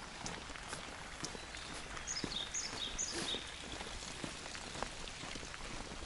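Footsteps on a wet paved road, about two a second, against steady light rain. From about two seconds in, a bird sings a short phrase of high, falling notes.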